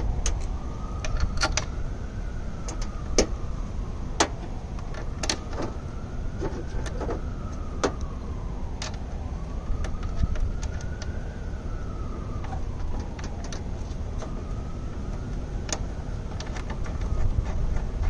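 Sharp metallic clicks and ticks from cable lugs and nuts being handled and fitted onto a power inverter's terminals, over a steady low rumble. A distant siren wails slowly up and down, about every four to five seconds.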